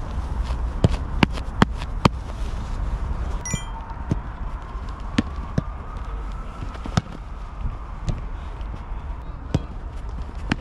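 Footballs being kicked and struck during a pre-match warm-up on artificial turf: sharp thuds at irregular intervals, several a second at times, over a low steady rumble.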